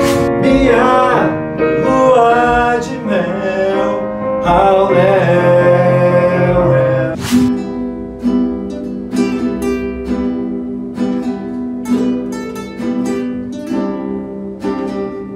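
A voice singing a wavering melody over accompaniment for about the first seven seconds. After a sudden break, several classical nylon-string acoustic guitars are played together, picking single notes.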